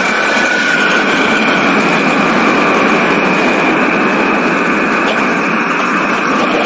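Steady riding noise from a moving BMW R 1200 GS motorcycle: wind rushing over the microphone, with the boxer-twin engine underneath and a steady high whistle.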